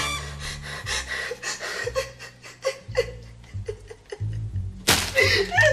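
Comedy background music: a stepping bass line under light, regular percussive hits. About five seconds in, a loud sudden burst, followed by a woman's gasping cry.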